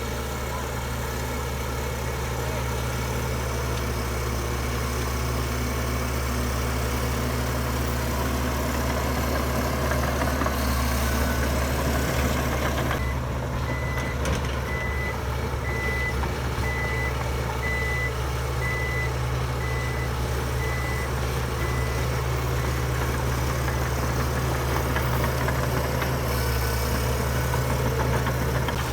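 Heavy diesel engines of earthmoving machines running steadily. Midway, a reversing alarm beeps about once a second for some eight seconds.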